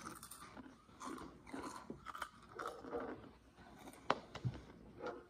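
Two people crunching and chewing Flamin' Hot Cheetos, with irregular crisp crunches.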